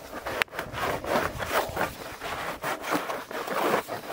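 Plastic tool rubbing and scraping between a sheet of winter birch bark and the log as the bark is prised loose, in repeated strokes about two or three a second. There is a sharp click about half a second in.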